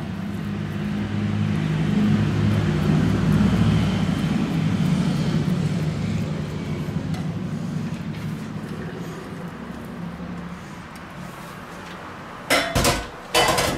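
A low engine drone swells over the first few seconds, then slowly fades. Near the end come a few sharp metallic clinks and knocks.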